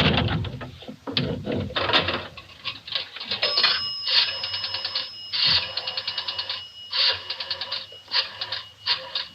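Pay-telephone sound effect: a nickel going into the coin slot, then a rotary dial clicking out several digits in quick runs of clicks with short pauses between them. A thin steady tone rings over the middle of the dialing.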